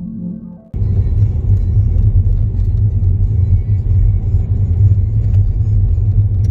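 Car driving, heard from inside the cabin: a steady low rumble of engine and road noise. It cuts in abruptly under a second in, as soft ambient music ends.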